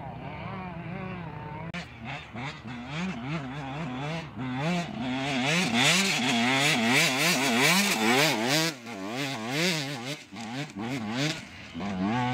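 Off-road dirt bike engines revving up and down over and over as riders work the throttle through deep sand, loudest around the middle as a bike passes close, then fading.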